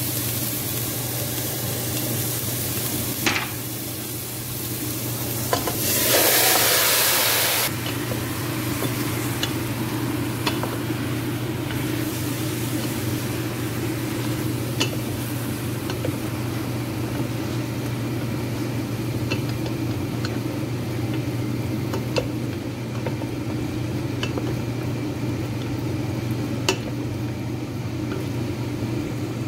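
Chopped onion and garlic sizzling in oil in a stainless steel pot, with a loud burst of sizzling for about two seconds, six seconds in, as raw chicken pieces go into the hot oil. After that, a wooden spatula scrapes and taps against the pot as the chicken is stirred, over a steady low hum.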